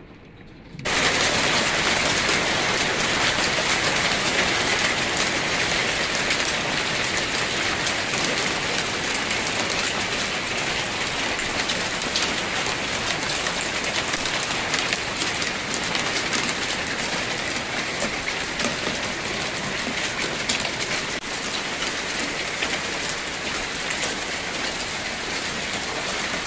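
Hail pelting down: a dense, steady hiss of countless small ticks from pellets striking the ground and surfaces. It starts suddenly about a second in.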